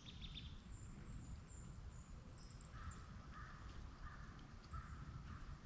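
Faint outdoor woodland ambience: a distant animal gives a run of short, harsh repeated calls from about two and a half seconds in, over faint high bird chirps and a low rumble.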